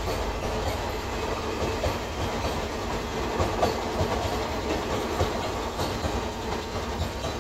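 Passenger train running on the track beside the road, its wheels clattering with irregular clacks over a steady rumble. It is heard from inside a moving truck's cab, with the truck's own running underneath.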